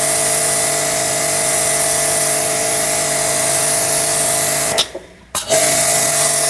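Orion Superjet 100S pressure washer spraying water through an extension stick and nozzle: a steady motor-and-pump hum under the hiss of the water jet. It cuts off abruptly about five seconds in and starts again half a second later.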